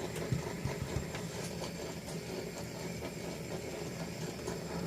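Fidget spinners spinning down on a hard surface: a low, steady whir from their bearings, with a few light ticks or knocks in the first second.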